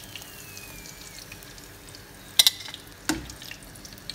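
Breaded chicken nuggets sizzling as they deep-fry in hot oil in a frying pan, with two sharp clinks of metal tongs a little past halfway.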